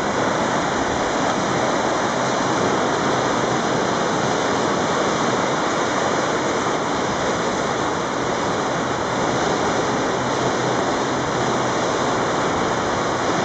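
Swollen river in flood, fast brown floodwater rushing over rapids and standing waves as a steady, loud rush of water.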